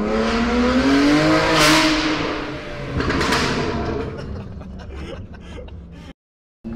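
BMW M2 Competition's S55 twin-turbo straight-six, breathing through an Active Autowerke equal-length non-resonated mid-pipe and an Eisenmann Race exhaust, pulling hard through a short tunnel with its note rising in pitch. Loud rushes of exhaust sound come about a second and a half in and again around three seconds in. The sound then eases off with a scatter of sharp crackles and cuts off abruptly near the end.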